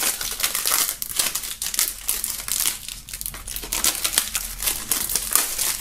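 Plastic shrink-wrap film being peeled and torn off a CD jewel case, with a rapid, irregular crinkling.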